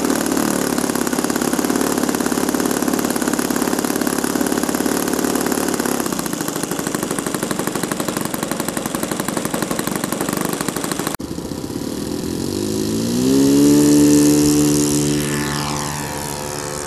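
ASP 91AR two-stroke glow engine on an RC aerobatic plane running at high revs on the ground, easing off slightly about six seconds in. After an abrupt cut, the plane's engine is heard in flight, its note rising and growing louder as it passes close, then fading away.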